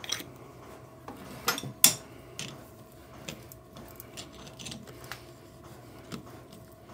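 Scattered metallic clicks and light scraping as a spiral-fluted taper cleaner is twisted in the bore of a lathe tailstock, turned by pliers gripping a screw in its end, to pick out shreds of metal. A faint steady hum sits underneath.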